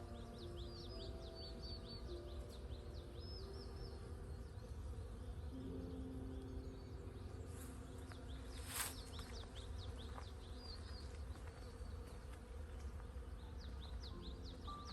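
Bees buzzing steadily, with small birds giving quick series of short high chirps, and soft sustained piano notes underneath.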